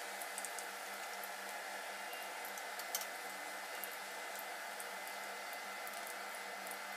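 Oil sizzling steadily in a frying pan as parsley omelette patties fry, with scattered light crackles and a faint steady hum underneath.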